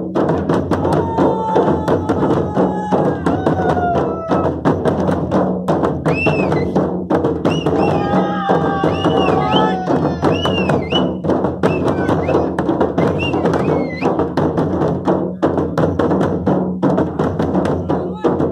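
Several large Konkan dhols, double-headed barrel drums, beaten with sticks in a dense, driving rhythm that keeps going without a break.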